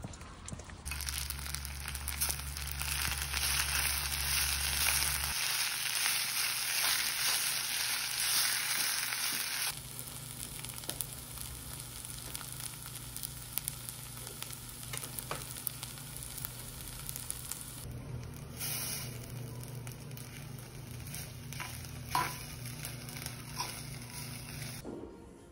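Rice sizzling in a hot stone bowl of albap as a metal spoon stirs and scrapes through it. The sizzle is loud for the first ten seconds, then drops to a quieter hiss with scattered clicks of the spoon.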